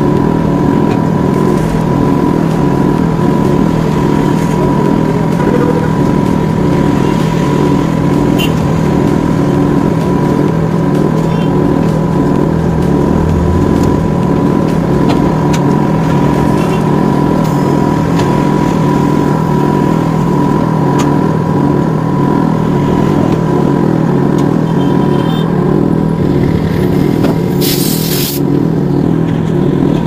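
Steady machine drone from tyre-shop equipment, running unchanged throughout. Near the end comes a short, sharp hiss of compressed air.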